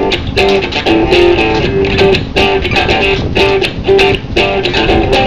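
Background music: a guitar-led track with a steady beat.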